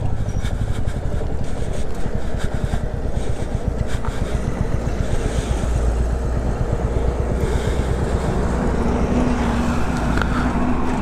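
Royal Enfield Classic 350's single-cylinder engine running steadily while the motorcycle rides a rough dirt road, with a few short knocks along the way. A steady higher tone joins the engine note about two-thirds of the way in.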